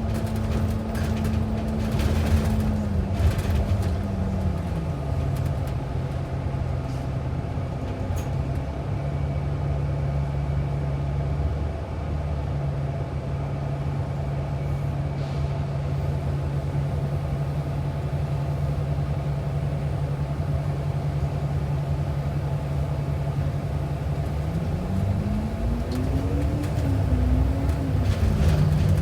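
Inside a moving bus: the engine and drivetrain hum steadily over road rumble, the hum dropping in pitch about four seconds in and climbing again near the end. A few rattles in the first few seconds.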